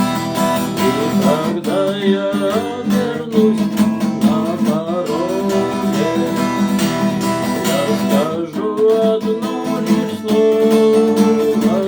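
Music: strummed acoustic guitar with a melody line that slides in pitch.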